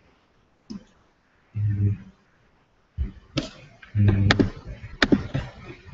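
A man's low voice, with no clear words, making short held sounds, with a run of sharp computer-mouse clicks over the second half.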